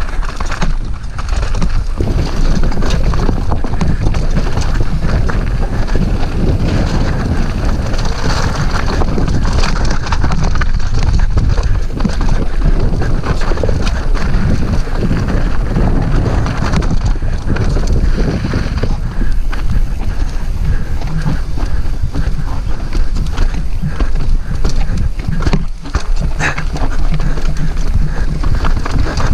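Mountain bike clattering and rattling over rocky singletrack at speed: tyres knocking on stones and the bike rattling, with wind rushing over the camera microphone.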